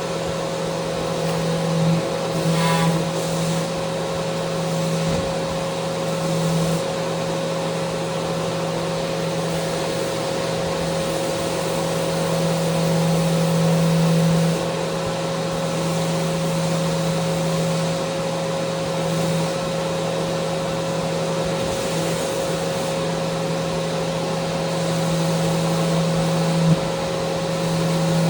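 Electric power sander running steadily on a wooden handrail, its motor giving a constant hum over the hiss of sanding, swelling a little now and then.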